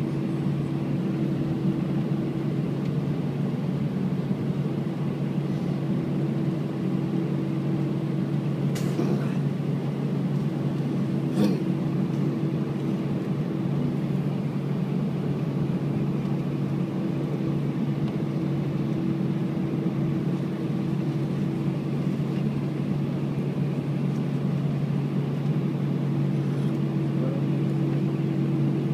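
Airbus A319-114's engines idling as the jet taxis, heard inside the passenger cabin as a steady drone with a low hum. Two short clicks sound through it, at about nine and eleven and a half seconds in.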